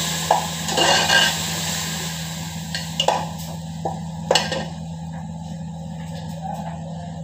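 Utensils knocking and clinking against a large metal cooking pot as a bowl of ingredients is emptied in and stirred: a handful of sharp clinks spread over the first half, with a steady low hum beneath.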